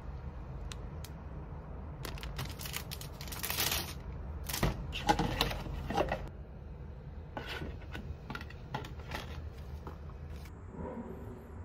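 A plastic package and mesh sheets being handled, opened and torn, crackling and rustling, with sharp clicks and scrapes against plastic flower pots as a pot's drainage hole is lined. The handling turns to a softer rustle of a plastic bag of potting mix near the end.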